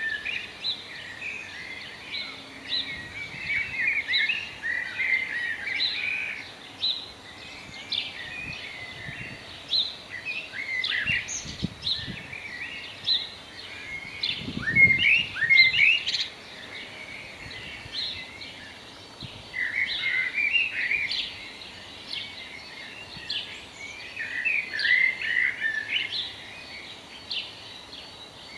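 Garden birdsong: several songbirds chirping and trilling in quick, overlapping phrases, with a brief low rumble about halfway through.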